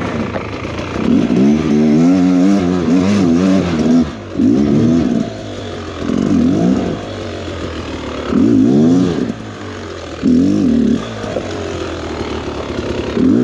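Two-stroke enduro dirt bike engine revved in repeated throttle bursts, about six times, dropping back to a lower note between each.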